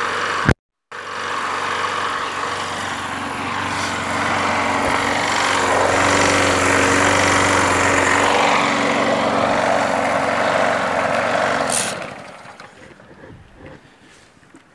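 Craftsman push mower's small gasoline engine running for about ten seconds, then winding down and dying near the end. It doesn't run that great, a sign of old, possibly dirty fuel.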